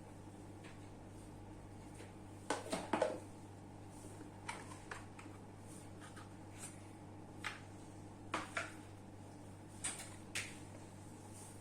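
Scattered clicks and knocks of small parts being handled, over a steady low hum; the loudest cluster comes about two and a half seconds in.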